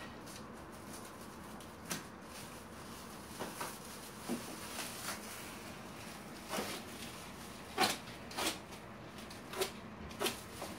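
Plastic stretch wrap being cut and torn away from a bundle by hand: irregular crinkles and rustles, with a handful of sharper crackles.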